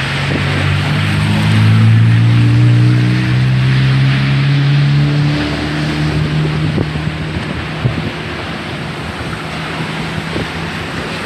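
A motor vehicle driving past on the road, its engine hum swelling and rising slightly in pitch, loudest a few seconds in and fading away. Underneath, steady storm wind on the microphone and rough surf.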